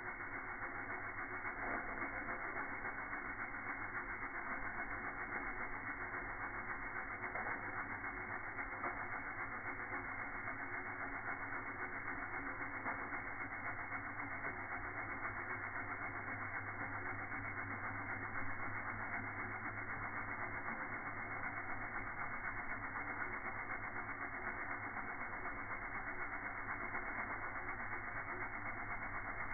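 Saito Hero's engine (Heron's ball) model running on live steam: a steady hiss of steam with no breaks.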